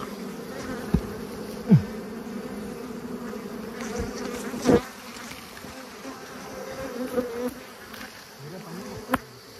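Swarm of wild honeybees buzzing steadily around their disturbed nest, with a few sharp knocks, the loudest about five seconds in.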